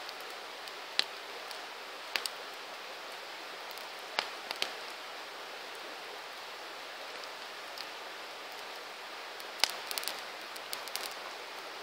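Wood campfire burning: a steady hiss with scattered sharp pops and crackles, a loud one about a second in and a cluster near the end.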